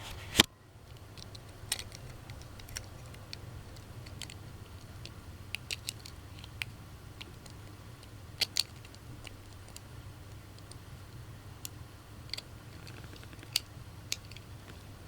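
Scattered small clicks and taps of plastic toys being handled, with one sharp click about half a second in, over a steady low hum.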